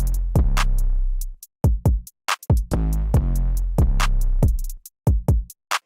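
Electronic intro music: a drum-machine beat with deep bass hits, stopping briefly in short breaks.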